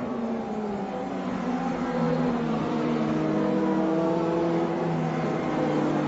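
Several Formula Renault 2.0 single-seaters' four-cylinder engines running at high revs on track. A louder engine note joins about two seconds in and holds a steady pitch over the others.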